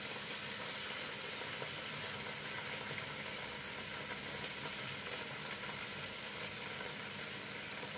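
Tofu frying in a pan with satay sauce: a steady sizzle.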